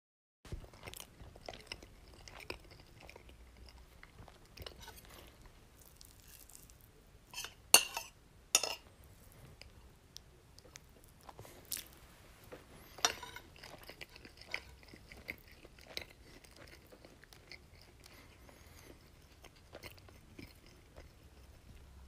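Close-miked chewing of crunchy food: a run of crisp crunches and bites, the loudest pair about eight seconds in.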